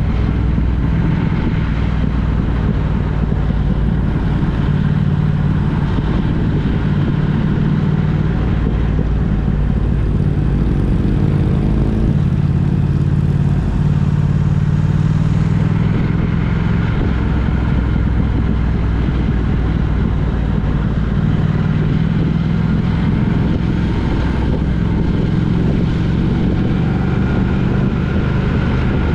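Engine and road noise of a moving road vehicle, running steadily with small shifts in engine pitch.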